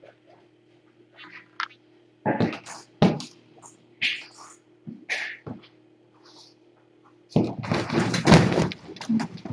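Irregular thumps and knocks with short bursts of rustling, the loudest a stretch of rustling and bumping about two seconds long near the end, over a steady low hum.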